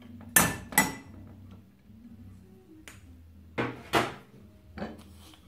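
A metal spoon clinks against a stainless-steel cezve with sharp, ringing metallic strikes: two about a second in, then three more about three seconds later.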